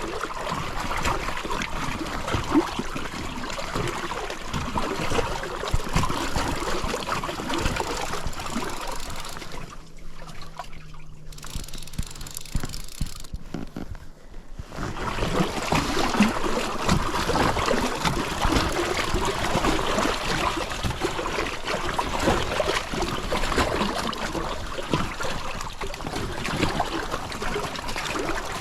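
River water trickling and splashing around a small inflatable raft. Near the middle it turns duller and quieter for about five seconds.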